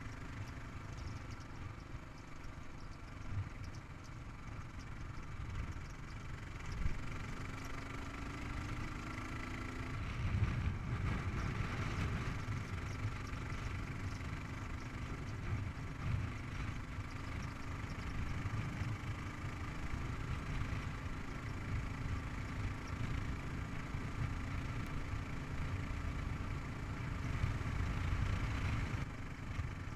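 Kawasaki KLR 650's single-cylinder engine running as the motorcycle rides along a road, mixed with wind and road noise. Its pitch rises about eight seconds in, and it grows louder around ten seconds in as the bike picks up speed.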